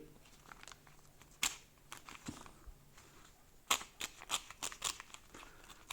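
Paper mailing envelope being handled and opened by hand. One sharp paper crackle about a second and a half in, then a quick run of crackles and snaps over the last two seconds.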